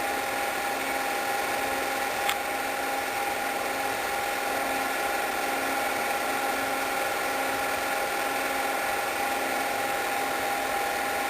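8mm film projector running with a steady mechanical whir and hum. There is a single click about two seconds in.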